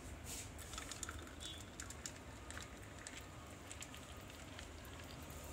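Soda being poured from a plastic bottle into a glass of juice over crushed ice, fizzing faintly with many tiny crackles.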